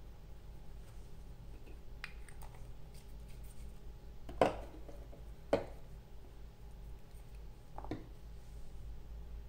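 A few small knocks and clicks of painting tools (brush, paint pots) being handled, four in all, the loudest a little before halfway, over a low steady hum.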